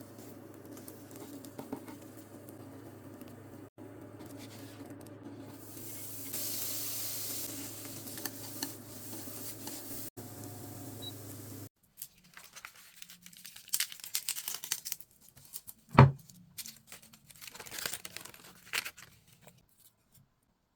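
Kitchen preparation sounds: a steady hum with a hiss for the first half. After a cut come crinkling, light tapping and handling noises, with one sharp knock about two-thirds of the way in.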